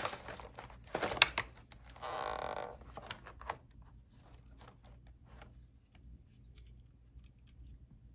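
Packaging being handled and opened: sharp clicks and crinkles of cardboard and plastic, with a short sliding scrape about two seconds in, then faint scattered ticks.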